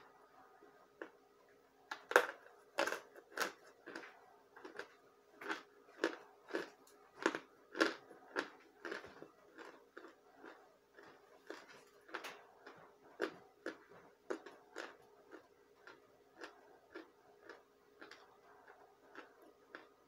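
A person chewing chunks of pressed cornstarch close to the microphone: crisp crunches at about two a second. They are loudest a couple of seconds in and grow softer in the second half.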